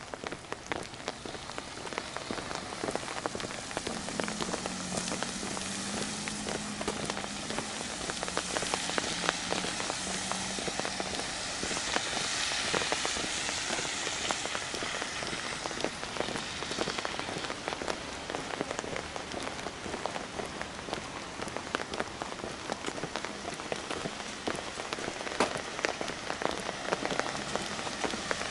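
Steady rain-like patter: a dense crackle of many small drops over a hiss, growing somewhat louder around the middle.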